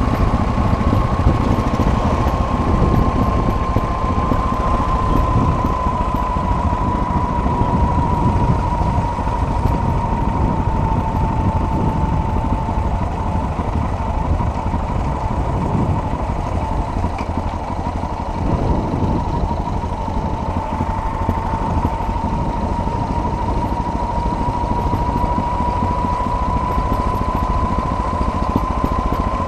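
Motorcycle running steadily on an off-road ride, a continuous rumble of engine and riding noise. A thin steady whine runs through it, sagging slightly in pitch through the middle and rising again near the end.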